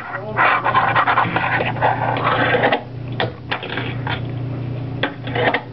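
A Tech Deck fingerboard's wheels rolling roughly on the wooden desk, then a run of sharp clicks in the second half as the board clacks against the desk and ramp.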